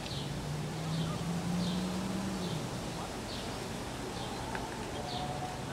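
A bird calling over and over, a short high falling chirp repeated a little under once a second, over a low steady hum that swells in the first half.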